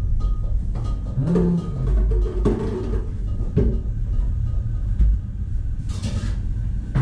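Commercial kitchen at work: a steady low rumble under knocks and clatter of stainless-steel pans, trays and a wok, with a brief hiss near the end.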